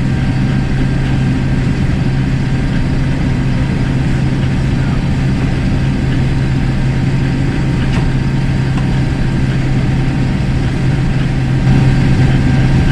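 Combine harvester running steadily while cutting and threshing soybeans, a loud, even low drone.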